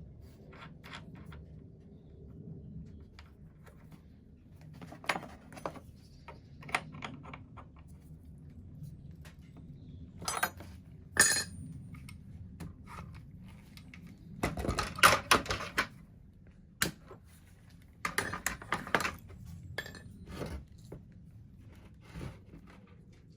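Scattered metal clinks and clattering as a spanner and router bit are handled on a palm router during a bit change, with louder bursts of rattling in a few clusters.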